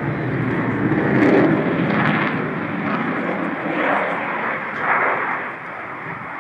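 Jet noise from an RAF Eurofighter Typhoon's twin EJ200 turbofans during a flying display: a broad rushing engine sound that peaks about a second in and then slowly fades.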